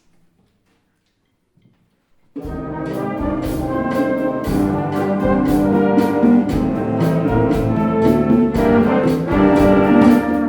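Concert wind band playing a Cuban-style piece: after about two seconds of near silence the full band comes in at once, loud brass carrying held chords over regular percussion strokes.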